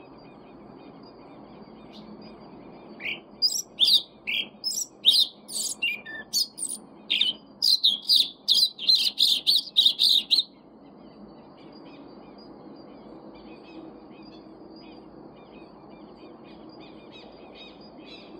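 Yellow-legged thrush (sabiá-preta) singing one loud phrase of about seven seconds: quick, clear notes that crowd into a fast run near the end. Other birds chirp faintly throughout.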